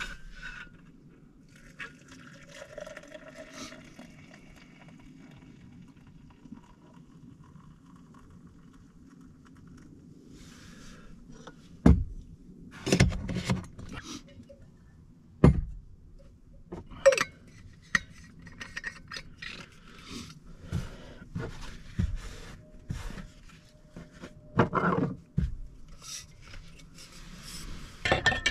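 Objects being handled and set down: scattered knocks, clinks and scrapes, a few sharp ones, starting about twelve seconds in after a stretch of faint low steady hum.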